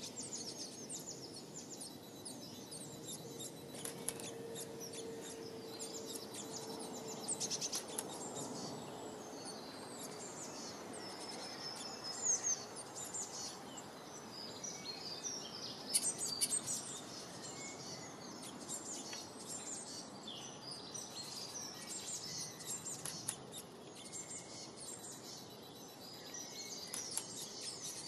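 Small songbirds chirping in quick, high notes over a low, steady background hiss, with bursts of busier chirping about halfway through and near the end.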